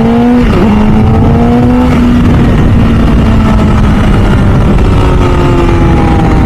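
MV Agusta F4 CC 1078 cc inline-four superbike accelerating hard, its revs climbing. About half a second in the engine note briefly breaks and drops as it shifts up, climbs again, then levels off and slowly falls from about two seconds in.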